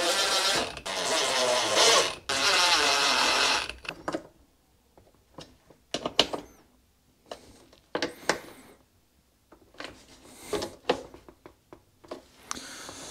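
Cordless power screwdriver driving screws in, running in three short bursts over the first four seconds with a whirring pitch that wavers under load. After that come scattered light clicks and knocks of parts and tools being handled.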